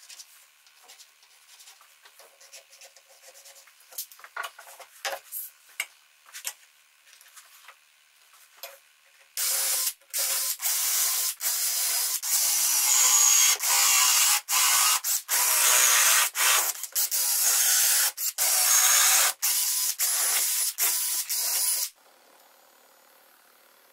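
Faint handling clicks, then from about ten seconds in a cordless drill runs in a string of short bursts, boring into the plywood sled base, and stops about two seconds before the end.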